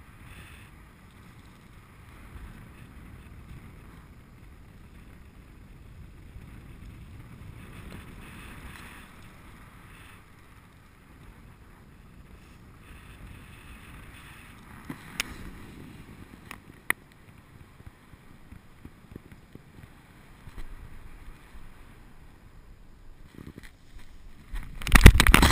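Faint wind rushing over a paraglider pilot's harness-mounted camera microphone in flight, with two brief sharp clicks in the middle. About a second before the end, a sudden loud, rough noise breaks in as the pilot comes down in a downwind landing and hits the ground.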